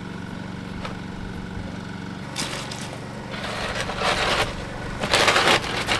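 A small engine running steadily, with bursts of scraping and crunching in the second half, the loudest just after five seconds in.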